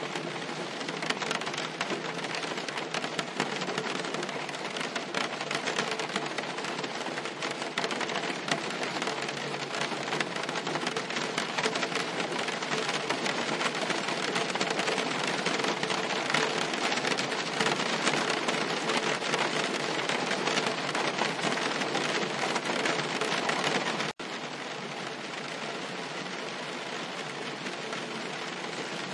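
Steady rain pattering on a car's roof and windscreen, a dense patter of many small drops. Near the end it cuts out for an instant and then carries on slightly softer.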